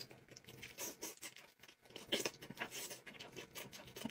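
Faint eating sounds: chewing food, with irregular soft clicks and small crunches.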